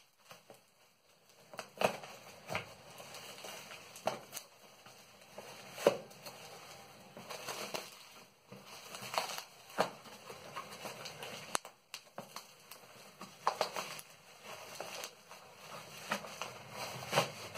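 Bubble wrap being handled and peeled off a package by hand: irregular rustling and crinkling of plastic with scattered sharp crackles.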